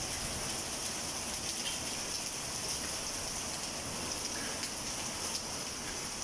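Heavy rain pouring down in a steady hiss, with a few scattered sharp ticks of hailstones striking.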